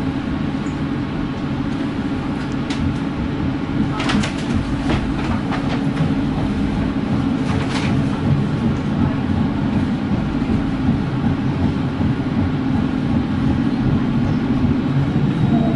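Tram running along its track: a steady low rolling hum from wheels and motors, with a few sharp clicks and rattles from the wheels on the rails, bunched about four seconds in and again near eight seconds.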